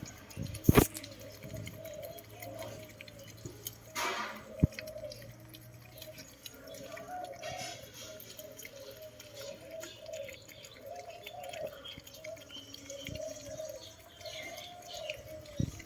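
Puppies eating: scattered wet clicks and smacks of mouths at food, with a louder knock about a second in and another around four seconds.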